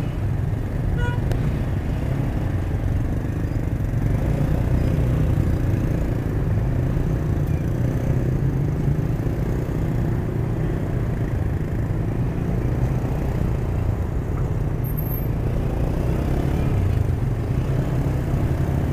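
Motorcycle engine running steadily at low speed in slow city traffic, heard from on the bike, with the hum of the surrounding cars' traffic.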